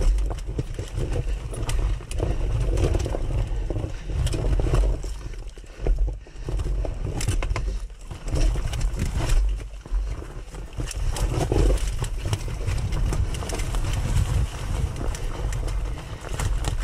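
Dirt bike engine chugging at low revs, the throttle opened and closed in short blips over a rocky trail, with frequent knocks and clatter from stones and the bike's chassis. The engine drops off briefly about six and eight seconds in.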